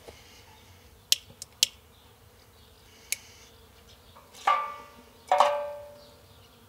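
A few sharp clicks, then two ringing metallic clangs about a second apart, each fading over about a second: metal cookware being knocked and set down.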